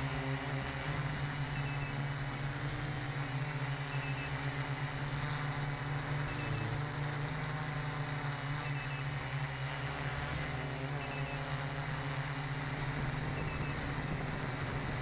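Quadcopter drone's electric motors and propellers running steadily in flight, a constant hum heard from the camera on board.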